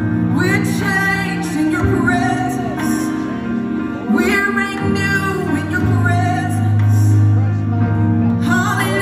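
A live worship band and vocalists performing a song, with singing over sustained low bass notes.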